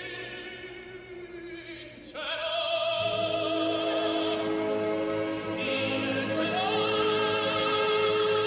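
Operatic singing over instrumental accompaniment: a voice holds long notes with wide vibrato, coming in louder about two seconds in and swelling again near six seconds.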